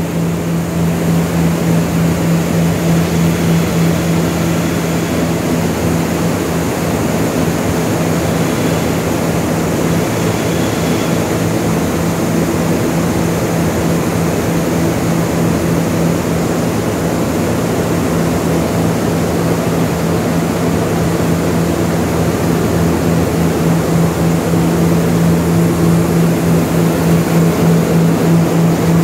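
Seed-cleaning and grading machinery running: a steady, loud machine roar with a strong low hum, from the blowers and shaking screens of the cleaners.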